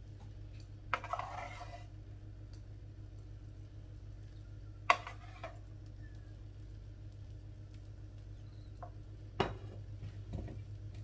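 Wooden spatula scraping and knocking against frying pans as minced meat is lifted from one pan onto eggs in another. There are three sharp taps, the loudest about five seconds in, and a brief scrape after the first, over a steady low hum.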